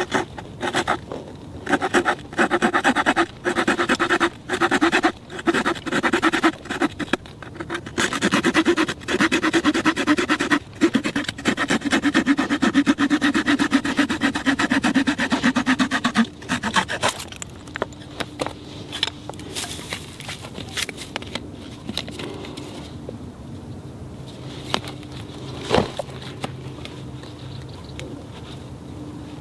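Bushcraft knife blade worked into a small wooden stick: runs of rapid scraping strokes for about sixteen seconds, then lighter scattered scrapes and clicks.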